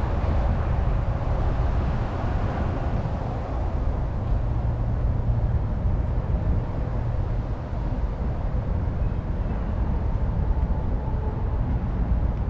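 Outdoor city background noise: a steady low rumble with a hiss of noise above it, with no single distinct event.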